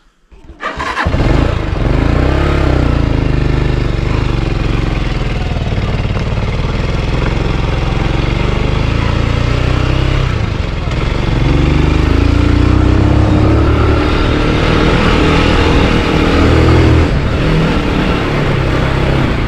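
Motorcycle engine running as the bike rides off, starting about a second in, its pitch rising and falling with the throttle.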